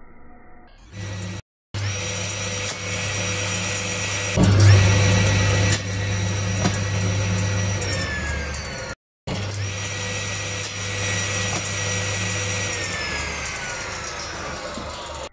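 Circular saw running with a steady high whine over a low motor hum, louder for a second or so around five seconds in. Twice the hum cuts out and the whine slides down in pitch as the switched-off blade coasts to a stop.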